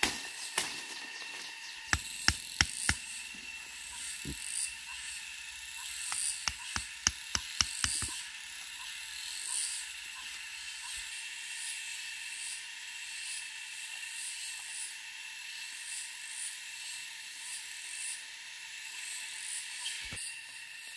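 Sharp snaps and knocks of wooden sticks being broken and handled, a few about two seconds in, a quick run of about eight between six and eight seconds, and one more near the end. Behind them, forest insects keep up a steady chorus of a few held high tones.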